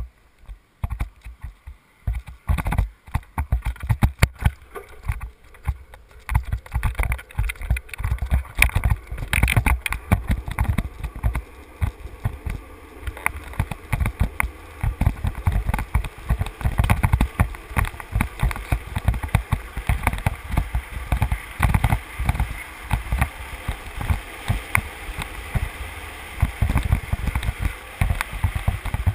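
Wind buffeting the microphone of a helmet camera on a street luge speeding downhill, in irregular gusts that build after the first couple of seconds, over a steady rumble of the luge's wheels rolling on asphalt.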